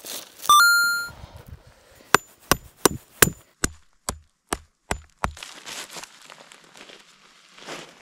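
A stake being hammered into stony ground to peg down a tarp corner. About half a second in there is one loud ringing metallic ding, then a run of about nine sharp knocks roughly 0.4 s apart. Footsteps crunch on gravel near the end.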